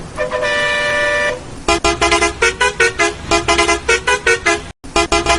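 A bus horn sample, first held as one two-note blast for about a second, then chopped into fast, short toots over a bass beat like an electronic remix. It cuts out for an instant near the end.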